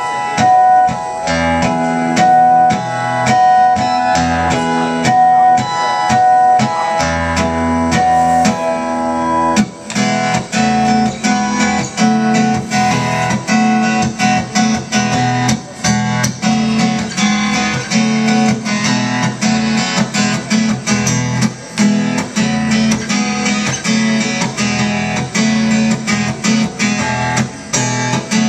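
Solo acoustic guitar playing an instrumental passage: single picked notes over held bass notes, switching about ten seconds in to steady strumming.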